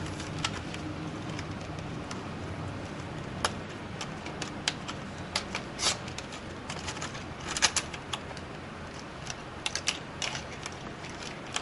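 Irregular light clicks and taps of plastic laptop parts and cables being handled as wires are fed through the opened chassis of a Dell Inspiron 1525 laptop, with small clusters of clicks about halfway and again near the end.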